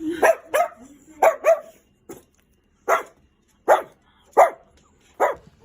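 A dog barking: about eight short, sharp barks, the first four in two quick pairs, then single barks roughly every three-quarters of a second.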